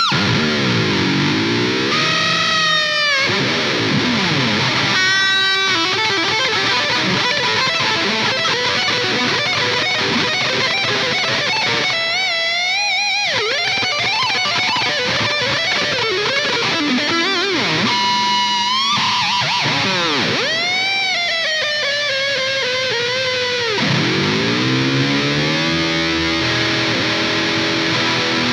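Charvel Wildcart electric guitar played with distortion in a shred-style solo: fast runs of notes and several long swooping pitch dives and rises.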